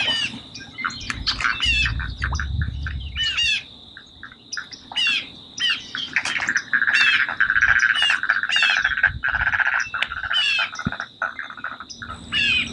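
Wetland birds calling over and over, short squawky calls that sweep in pitch, over a steady thin high tone. A denser trilling chatter joins about six seconds in and runs for about four seconds.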